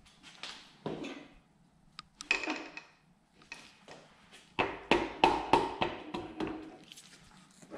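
A piston being tapped down with a mallet through a ring compressor into a cylinder bore of a Toyota 2JZ engine block. A few separate taps come first, then a quick run of light taps, about five a second, in the second half.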